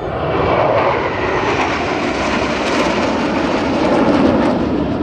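Roar of a formation of Black Eagles T-50B Golden Eagle jets passing overhead: a loud, steady jet rumble that swells in the first second and stays loud.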